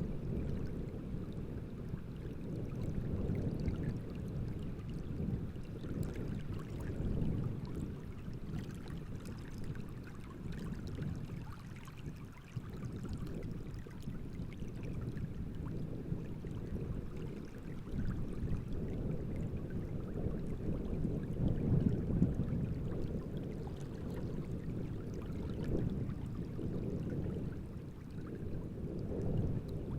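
Wind gusting over the open water of a large reservoir at night, with small waves splashing. The sound is mostly low and rises and falls with the gusts, strongest around the middle of the stretch.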